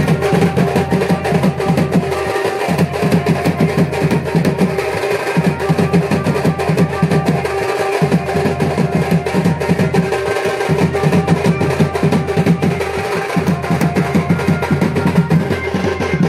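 Loud DJ dance track with fast, dense drumming over a steady bass and a held tone; it cuts off abruptly at the end.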